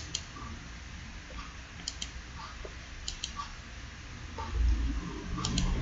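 Computer mouse clicks: a few sharp clicks, mostly in quick press-and-release pairs, spaced a second or so apart, over a low steady hum that swells near the end.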